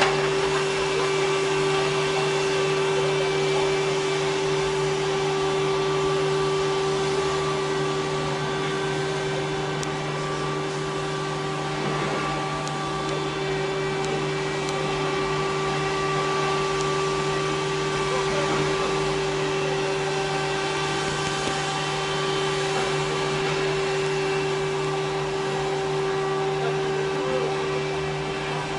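Dust-suppression mist cannon running, its fan giving a steady motor drone and whine at a constant pitch.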